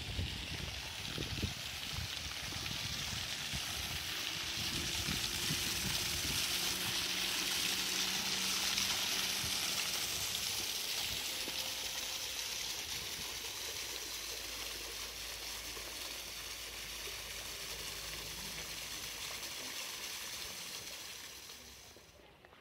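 Water rushing down a stone-walled stream channel, a steady hiss that swells, then eases and drops off sharply near the end. Wind buffets the microphone in the first couple of seconds.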